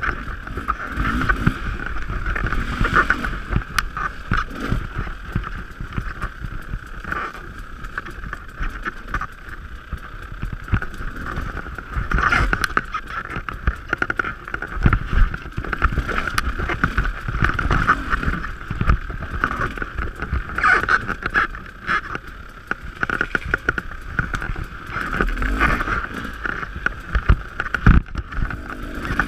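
Dirt bike engine running and revving up and down as the bike is ridden along a rough trail, with scattered knocks and thumps from the bike over the ground.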